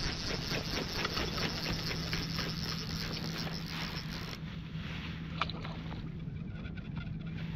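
Click-pawl fly reel ratcheting as the line is reeled in against a hooked pink salmon. It is a fast, even ticking that thins out and softens about four seconds in.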